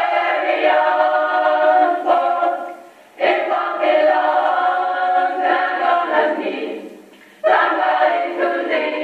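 Gospel choir singing, in long phrases that break off briefly about three seconds in and again about seven seconds in.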